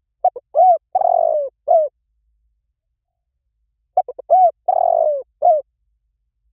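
Spotted dove cooing: two song phrases about three and a half seconds apart, each a few quick short notes, then a long drawn-out coo that sinks in pitch, and a short closing note.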